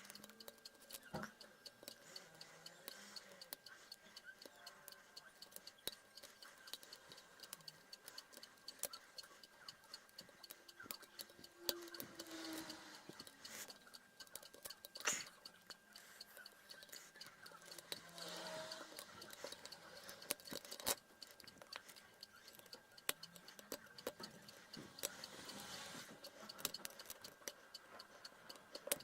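Light metallic clicks and scrapes of a lock pick working the pins of a Yale euro cylinder held under tension, during single-pin picking. The clicks come quickly and unevenly, with a couple of sharper ones along the way.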